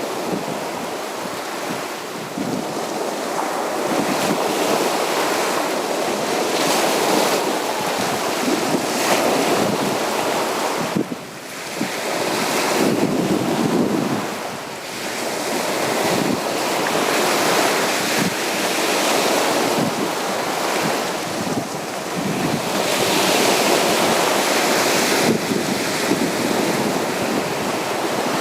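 Sea surf washing onto a beach in continuous rolling waves, swelling and easing, with two brief lulls near the middle.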